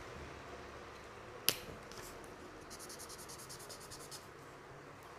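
A sharp click about one and a half seconds in, then a felt-tip marker's tip scrubbing quickly back and forth on paper, colouring in, at about seven strokes a second for a second and a half.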